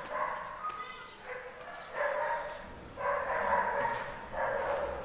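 Shelter animals crying over and over at feeding time: drawn-out pitched whines or mewls, roughly one a second, several overlapping.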